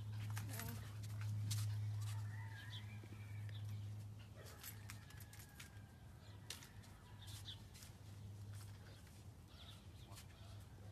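Scattered short bird chirps over a steady low hum, with a few faint clicks.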